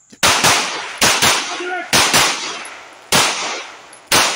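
9mm pistol fired eight times: three quick double taps, then two single shots about a second apart, each shot with a short ringing tail. A man's brief shout comes between the second and third pairs.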